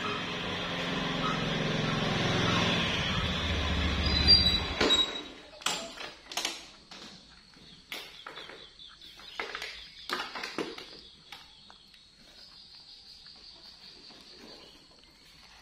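Motor scooter engine running as it rides in, growing louder, then switched off about five seconds in. A few light clicks and knocks follow.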